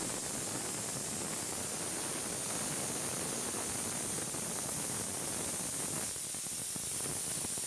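Stovetop pressure cooker venting steam through its whistle weight: a steady hiss as the cooker lets off pressure on the gas flame, one of the whistles counted to time the dal's cooking.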